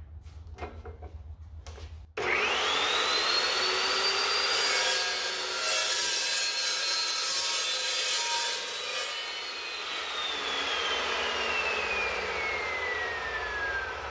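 Evolution S380 tungsten-carbide-tipped metal-cutting chop saw: its 15-amp motor starts about two seconds in with a whine that rises to a steady high pitch. The blade cuts through 1-3/8-inch, .188-wall tubing for about four seconds with a harsh hiss. The motor is then switched off and the whine falls steadily as the blade winds down.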